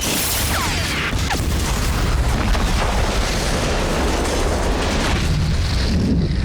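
Film explosion sound effect: a loud, deep blast that keeps rumbling. A couple of falling whistles sound within the first second or so.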